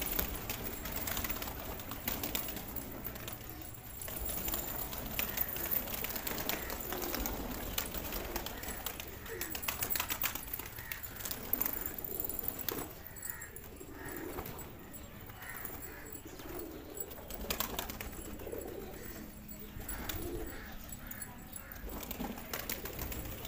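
A flock of domestic pigeons cooing, with wings flapping and clattering as birds fly out and land.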